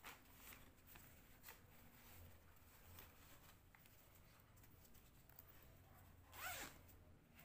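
Faint handling of a fabric zippered pouch: soft rustles and small clicks as the zipper pull is worked, with one brief louder scrape about six and a half seconds in.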